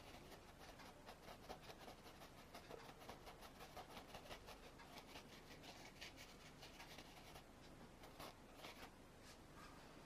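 Faint scratching of a paintbrush scrubbing and blending paint on a wooden panel, a quick run of short strokes that thins out in the last few seconds.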